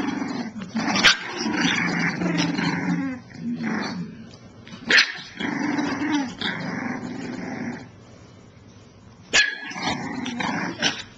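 Month-old Staffordshire bull terrier puppies growling at each other in play, in long low rumbles broken by three sudden sharp sounds.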